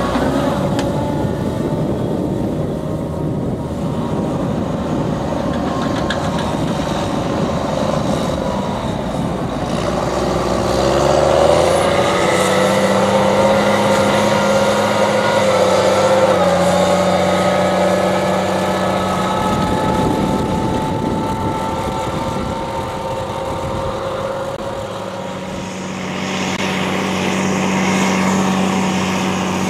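Tractor diesel engine running under load as it pulls a two-axle Kaweco vacuum slurry tanker with its injector across a field. Its pitch rises about a third of the way through, then holds steady.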